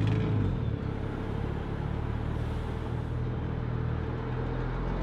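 Three-axle regional coach's engine running as the coach pulls away, fading a little in the first second, then holding a steady low drone.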